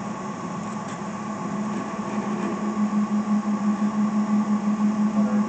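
Victor DCM-4 vertical band saw running in its high speed range, its 2 hp three-phase motor and blade drive giving a steady hum. From about halfway the hum takes on an even pulsing of about three beats a second.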